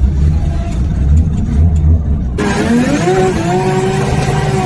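Drift car engine heard from inside the cabin: a deep low rumble, then about two and a half seconds in it revs up sharply and holds at high revs under a loud rush of noise.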